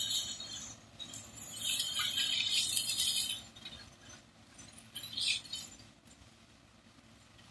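Claas Cat 450 combine harvester harvesting sunflowers at a distance: a faint low running hum under bursts of high, hissing rattle that come and go, going quieter over the last second or two.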